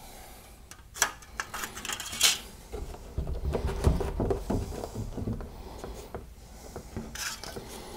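Handling noise as the two halves of a cracked plastic bumper cover are pulled together and foil tape is worked onto the joint: a scattered run of light clicks, knocks and crinkles, with a few sharper crackles about a second or two in and again near the end.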